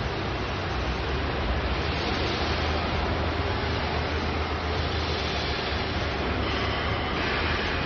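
Mini excavator's Kubota V1505 four-cylinder diesel running steadily: a low hum under a broad hiss, which grows harsher about seven seconds in.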